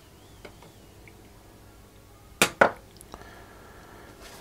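Two sharp metallic clinks in quick succession, about halfway through, from small metal hand tools and wire being handled on a workbench.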